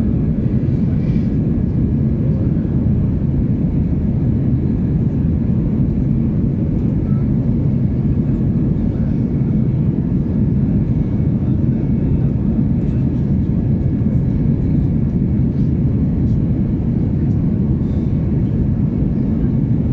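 Airbus A320 cabin noise in flight after takeoff: the engines and airflow make a steady, deep drone, with a faint steady whine above it. Heard from a window seat over the wing.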